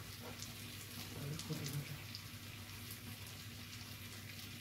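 Meat sizzling on a tabletop Korean barbecue grill pan: a steady crackling hiss with scattered small pops. A brief low murmur of a voice comes about a second and a half in.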